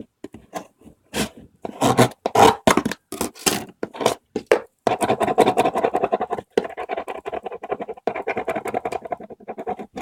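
Hands scratching and rubbing at something held close to the microphone: a string of separate sharp scrapes and clicks, turning about halfway through into denser, continuous rubbing.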